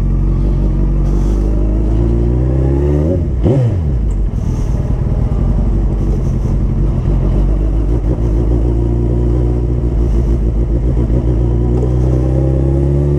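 Suzuki Hayabusa's inline-four engine running under way, heard close from the bike. Its pitch climbs, dips sharply and recovers about three and a half seconds in, then holds nearly steady and slowly climbs again near the end.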